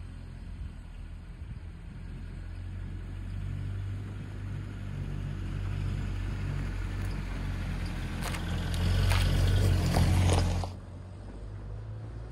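Land Rover Series 3's 2.25-litre petrol four-cylinder engine running as the vehicle approaches and drives past. It grows louder, with tyres crackling over the gritty track at its loudest about eight to ten seconds in, then drops away suddenly, leaving a fainter engine hum.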